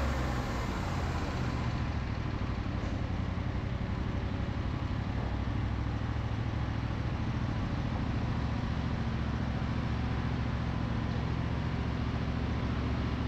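Sawmill machinery running steadily: an engine drone with an even hiss over it and no break.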